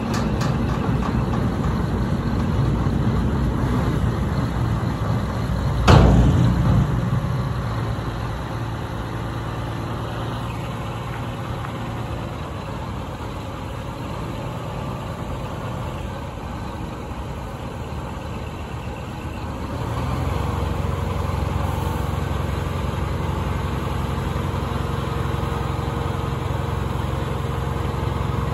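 Scania P380 8x4 dump truck's diesel engine running while the tipper body is raised hydraulically. About six seconds in comes a sudden loud burst that dies away over about a second, and near the end the engine gets louder and runs steadily at higher revs.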